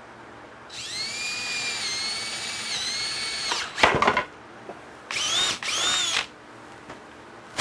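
Cordless drill with a brad point bit boring into white oak, its motor whine sagging a little under load for about three seconds. Then the bit catches in a split in the wood and the block is wrenched round with a short, loud clatter. After that the drill runs free twice, briefly, its whine rising and falling.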